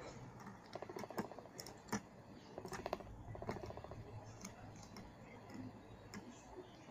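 Small plastic spinning tops spinning on a wooden board: faint scattered clicks as the two tops knock together, with quick rattling runs about a second in and again around three seconds in as their tips chatter on the surface.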